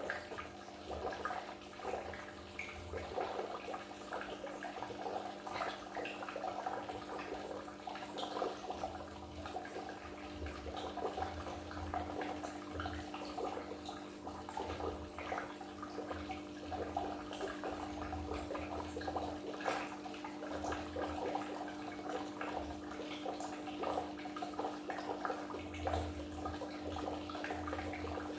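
Goldfish aquarium water bubbling and splashing continuously over a steady low hum.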